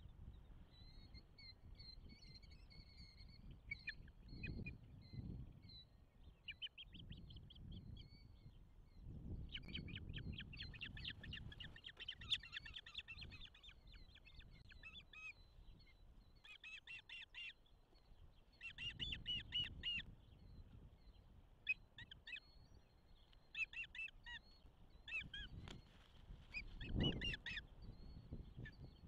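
Ospreys calling at the nest: bouts of rapid, high whistled chirps, excited calling as the mate lands on the nest. Low rumbling thumps come between the calls, the loudest near the end.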